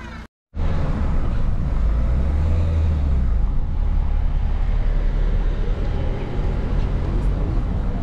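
Steady low rumble of a car driving along a road, starting abruptly after a brief drop-out in the sound.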